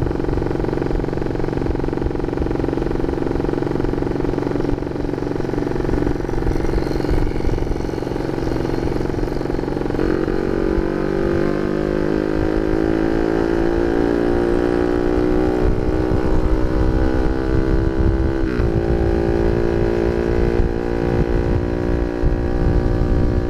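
Honda Sonic 150R motorcycle's single-cylinder four-stroke engine running through a CLD Monster aftermarket exhaust while ridden. It holds a steady pitch at first, then picks up speed from about ten seconds in with a rising pitch, dipping briefly near the end before rising again.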